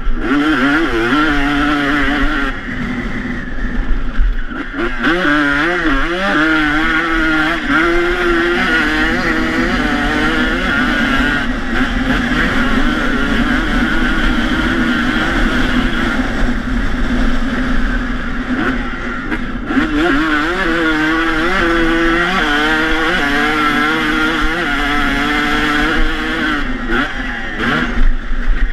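Two-stroke dirt bike engine at speed, its pitch climbing and dropping again and again as the rider works the throttle and shifts through the gears.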